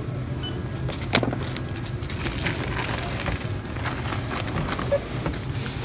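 Grocery items being handled, with a few sharp knocks and rustles over a steady low hum and faint music; a short electronic beep sounds about half a second in.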